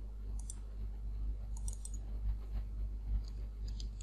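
Computer mouse clicking a few times, including a quick double click about half a second in and a cluster of clicks near the end, over a steady low hum.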